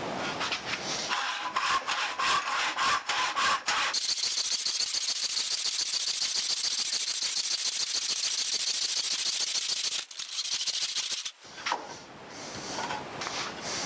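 Hand saw in a Stanley 358 miter box cutting through a 2x4 with rapid back-and-forth strokes. The rasping is uneven for the first few seconds, settles into a fast steady rhythm, and stops about ten seconds in.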